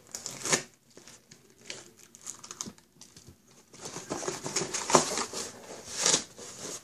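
Packing tape being peeled and torn off a small cardboard box and its flaps pulled open, a run of scratchy tearing and crinkling noises. It gets busier and louder in the second half.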